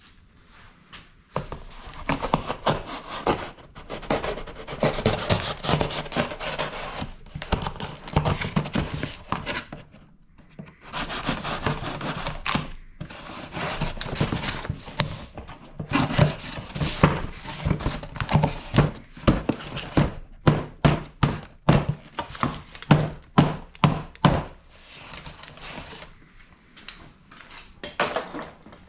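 Hand-handling noises at a workbench, with rubbing, scraping and rustling, then a quick run of short knocks, about two or three a second, through much of the second half.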